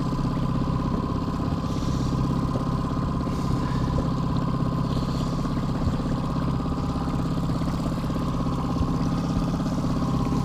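Mercury outboard motor running steadily at trolling speed, an even drone that holds the same pitch throughout.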